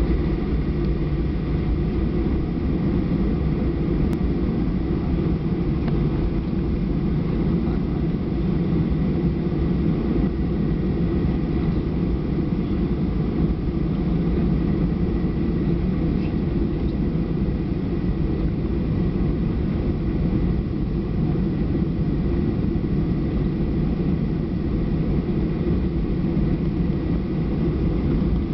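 Cabin noise inside a Boeing 737-800 taxiing: its CFM56-7B jet engines running steadily at idle, a low hum with a faint steady whine over it.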